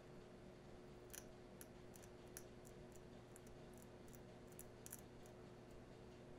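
Near silence with a faint steady hum, broken by about a dozen small, sharp scratchy clicks between about one and five seconds in: a hobby blade scraping and cutting through the copper ground-plane layer of an iPhone 6 logic board.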